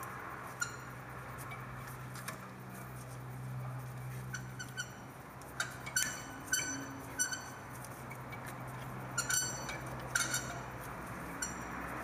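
Brake caliper piston rewind tool being turned on a 2008 Ford Taurus rear caliper, screwing the piston back into its bore. It gives short metallic clicks and clinks in small bunches, some ringing briefly, over a steady low hum.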